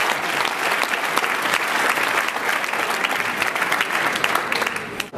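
Large banquet audience applauding: dense, steady clapping that cuts off suddenly near the end.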